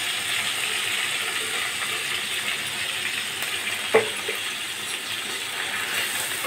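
Soaked, wet rice sizzling in hot ghee in a kadhai as it is stirred with a spatula, a steady frying hiss. A sharp knock of the spatula against the pan about four seconds in, with a lighter one just after.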